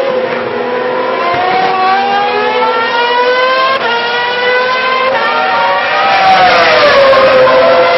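Formula One 2.4-litre V8 engines at high revs on track, the pitch climbing through the gears with a sharp drop at an upshift about four seconds in. Near the end a car passes loudest and its engine note falls.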